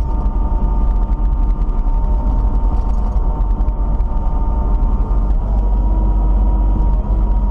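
Kubota KX91 mini excavator's diesel engine running steadily, with a low hum and a few steady tones over it.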